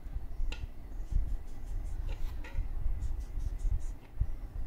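Short scratchy strokes of a pen drawing on paper, in quick runs, over low knocks and rumble from the sheet and table being handled.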